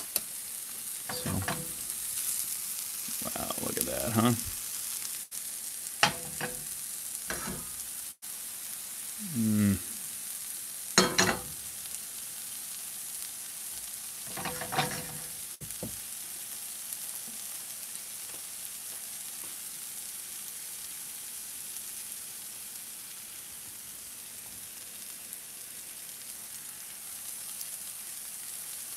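Sliced mushrooms sizzling in butter and oil in nonstick frying pans over low heat, a steady high hiss. During the first half, about eight short scrapes and knocks come from the pans being stirred and shifted on the stove grate; after that only the sizzle continues.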